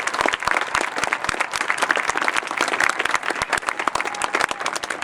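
Stadium crowd applauding, dense clapping with some cheering, for a band just announced in third place.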